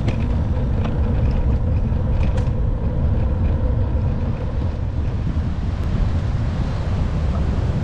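Wind rumbling on the microphone of a camera riding along on a moving e-bike, with a faint steady whine underneath.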